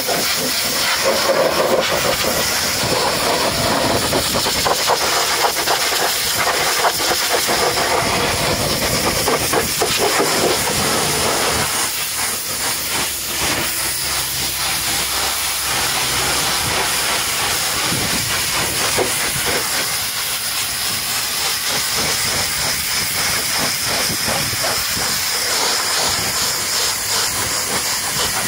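High-pressure washer jet spraying water onto a truck's steel wheel rim and tyre: a loud, steady hiss with the spatter of water coming off the wheel, its tone wavering as the jet moves over the surface.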